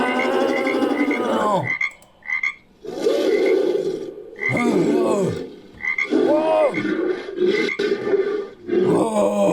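Layered frog croaks making up a creature call. One long croaking call falls in pitch and cuts off just under two seconds in. A run of shorter croaking calls with brief gaps follows, with short high chirps repeating behind them.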